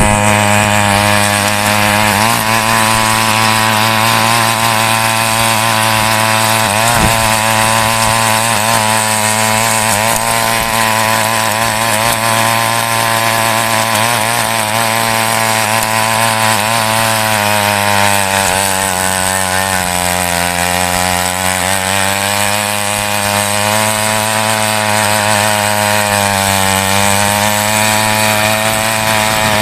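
Small petrol mini weeder's engine running steadily at high speed while its rotary tines dig through loose soil. The engine's pitch sags for a few seconds past the middle and briefly again near the end, then recovers.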